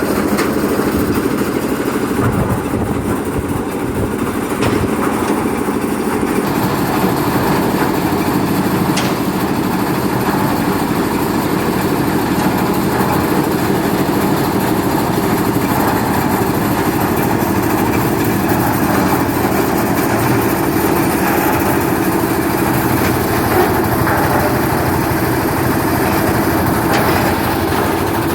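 Concrete mixer machine's 10 HP air-cooled diesel engine running steadily.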